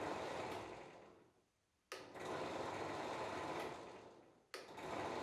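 Bench drill press's 250-watt electric motor running, switched off twice and winding down each time, then started again abruptly about two seconds and four and a half seconds in.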